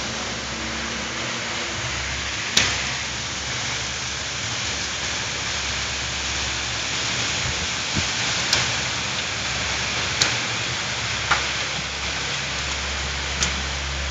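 Heavy rain from a spring thunderstorm falling in a steady hiss. About six sharp single taps sound close by.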